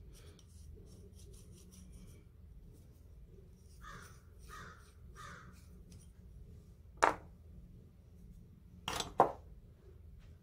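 Sharp metallic clicks of steel tools and valve parts being handled and set down on a workbench: one about two-thirds of the way in and a quick double click near the end. Three short calls come partway through.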